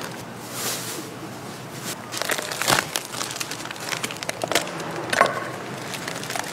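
Plastic food packaging crinkling and crackling in irregular sharp bursts as gloved hands pull it open and tear it.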